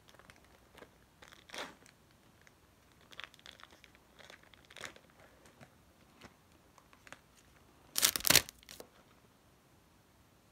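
Plastic wrapper of a trading card pack crinkling softly as it is handled, then ripped open in one loud tear about eight seconds in.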